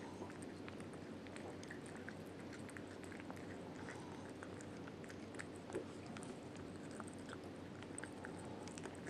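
Domestic cat chewing and crunching small dried fish from a bowl: irregular small crunches, with one louder knock a little past halfway, over a steady low hum.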